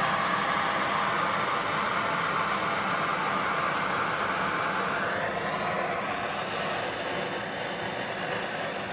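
Propane torch with a Searzall head burning with a steady, loud hiss. About five seconds in its sound shifts higher as the flame is brought down onto a pork butt to sear and crisp the surface.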